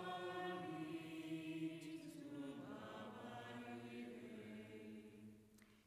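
A congregation singing a slow sung response to the prayers on long held notes, the pitch stepping down about halfway through and fading out near the end.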